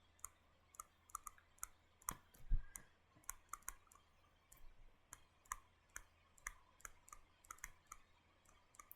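Faint, irregular light clicks of a stylus tapping and writing on a tablet screen, with one soft thump about two and a half seconds in.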